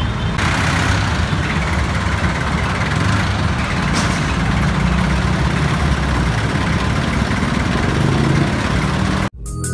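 A heavy engine running steadily, a low rumble under general outdoor machinery noise. Near the end it cuts off suddenly and electronic music with a heavy beat starts.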